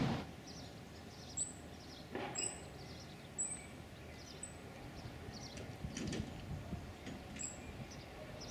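Small birds chirping over a faint steady outdoor background: a short, very high chirp repeats roughly once a second, with other brief calls in between.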